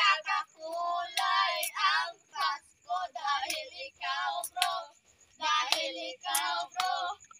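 A young girl singing unaccompanied, in short phrases with brief pauses between them.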